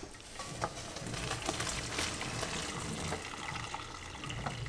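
Water running and splashing into a stainless-steel kitchen sink, a steady rush.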